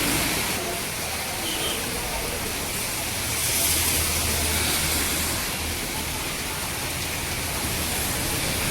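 Heavy rain falling in a steady hiss, with traffic rumbling past on the wet highway; a vehicle swells louder and fades away in the middle.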